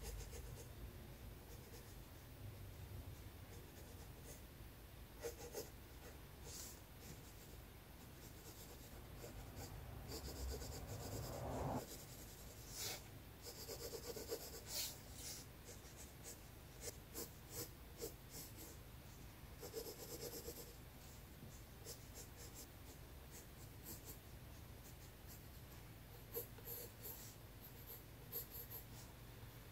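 Pencil sketching on sketchbook paper: faint scratching strokes that start and stop, with a short rising sound that cuts off about twelve seconds in.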